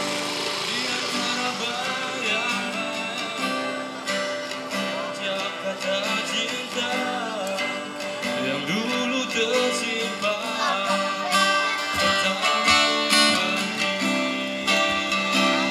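Live band playing amplified music through a PA, with a singer's voice gliding through notes in the middle.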